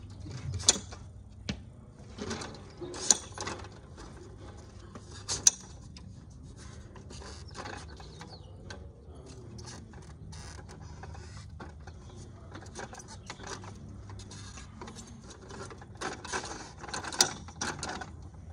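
The aluminium leg joints of a KingCamp bamboo folding camping table being worked to change its height: a run of metal clicks and rattles as the leg locks are moved, with a handful of sharp, much louder clicks and a cluster of them near the end.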